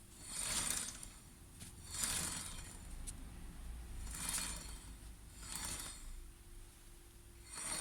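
A strange metallic rubbing noise that comes back in short swishes about every one and a half to two seconds, once per turn of the wheel, from the brake disc and chain area; the owner does not know whether the disc or the chain is rubbing.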